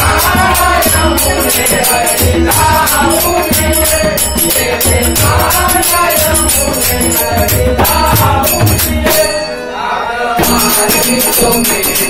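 Marathi gavlan bhajan: men singing together over a harmonium, with pakhawaj and tabla drums keeping a steady beat and jingling hand percussion. The music thins out briefly about ten seconds in, then picks up again.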